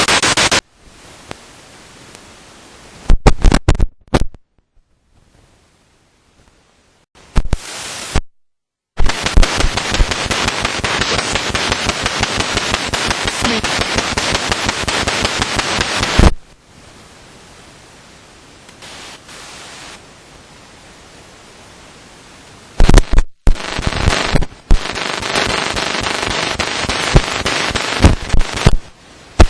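Spirit box radio sweeping through stations: loud stretches of hiss and static chopped by rapid clicks, which cut off suddenly into quieter low hiss and, a few seconds in, a few seconds of near silence.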